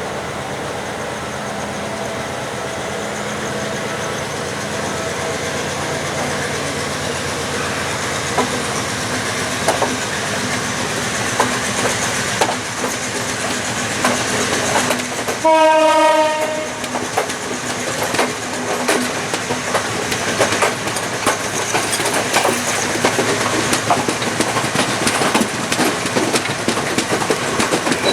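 Sri Lankan diesel train of the Badulla–Colombo night mail pulling out: a steady engine hum, then wheels clicking over the rail joints more and more often. About halfway through, one loud horn blast of a bit over a second.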